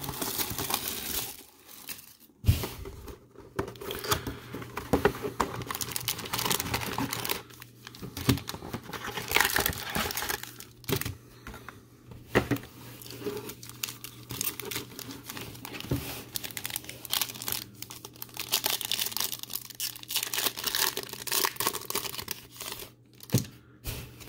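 Plastic shrink wrap and foil card packs crinkling and tearing as a sealed box of trading cards is unwrapped and a pack ripped open, with irregular crackles, rustles and a few sharp clicks, then cards being handled.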